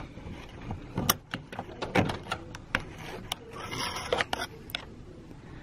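A thin metal pick clicking and scraping inside a locked brass doorknob as the knob is jiggled to pick the lock. There are irregular sharp clicks, with a longer scraping rattle about four seconds in.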